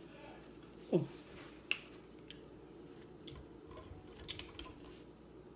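Quiet eating sounds at a seafood boil meal: soft chewing with a few small clicks and taps. About a second in, a short vocal sound sliding steeply down in pitch, followed shortly by a sharp click.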